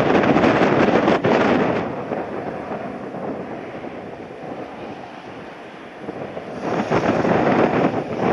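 Strong gusts of wind buffeting the microphone: loud for the first couple of seconds, easing off through the middle, then gusting hard again near the end.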